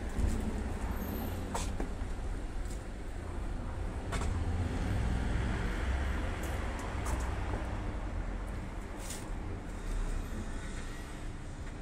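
Steady low rumble of city traffic in the background, with a few brief faint clicks.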